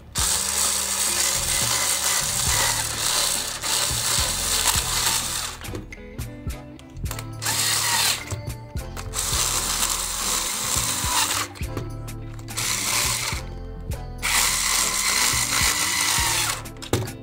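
Cordless drill-driver turning a small screw in a plastic toy's housing, run in about five bursts: a long one of several seconds, then shorter runs with brief pauses between.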